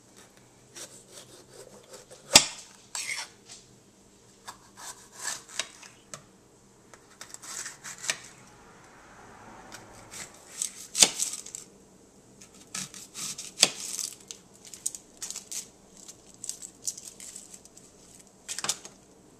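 Kitchen knife slicing a green bell pepper into rings, with crisp cuts and the blade knocking on the cutting board at an irregular pace; a few knocks stand out louder than the rest.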